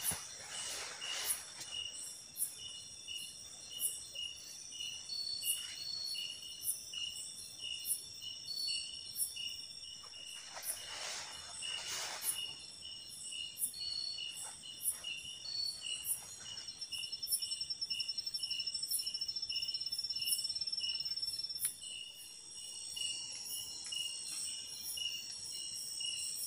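Night insects in the forest, crickets and similar, keep up a steady high-pitched chorus, with a chirp pulsing about twice a second over continuous trills. Twice, at the start and about ten seconds in, there is a short spell of rustling.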